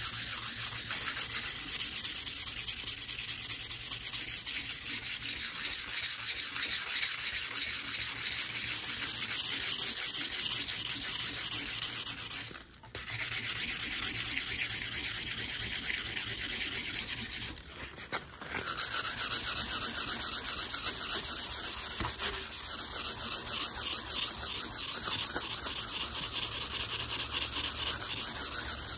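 Abrasive paper rubbed rapidly back and forth along the steel blade of an old P.S. & W. Co. drawknife, cleaning up the blade's surface. The scratchy strokes stop briefly a little under halfway through and again around two thirds through.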